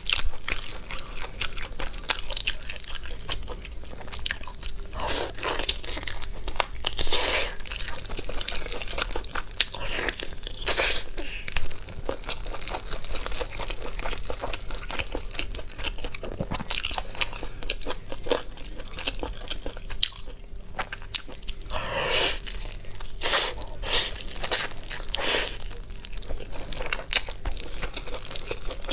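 Close-miked eating sounds: biting and chewing spicy roast chicken, with irregular crunching and crackling as the skin and meat are bitten and torn from the bone.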